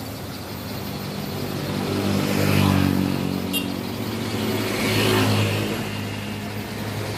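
Light truck's engine running as it drives slowly past, the engine note swelling twice, loudest about two and a half and five seconds in.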